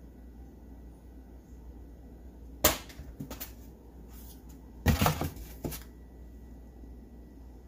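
Sharp clicks and taps of small toy-motor parts being handled: one loud click about two and a half seconds in, a few lighter ones just after, then a quick cluster of clicks around five seconds in.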